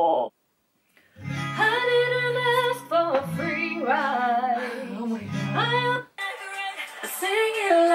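Music: a woman singing over plucked acoustic guitar chords, starting after a brief silence near the beginning.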